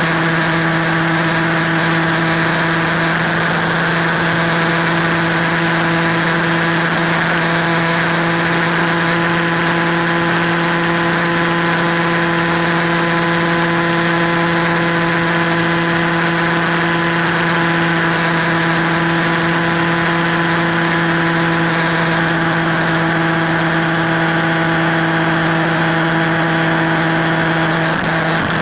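Motorcycle engine running steadily at highway cruising speed, a constant hum under steady wind rush, with a brief dip near the end.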